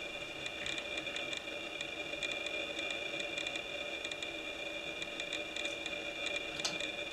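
Small fine-tipped scissors snipping in quick, irregular cuts, trimming a synthetic Laser Dub dubbing head. A steady high-pitched hum runs underneath.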